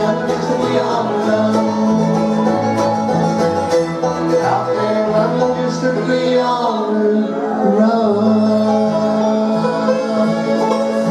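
A bluegrass band playing live, with banjo and guitar picking over a steady bass line, in an instrumental passage.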